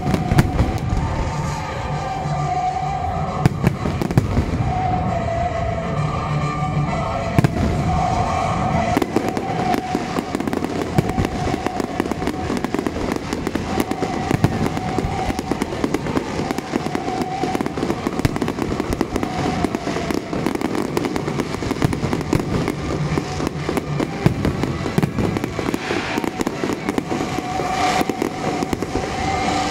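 Fireworks display: aerial shells going off with sharp bangs, turning into dense, continuous crackling about a third of the way in, over music played with the display.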